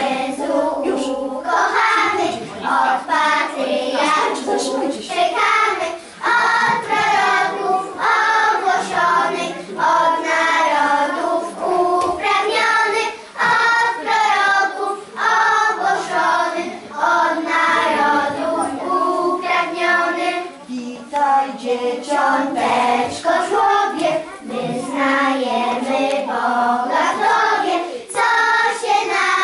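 A group of young children singing a song together in steady sung phrases.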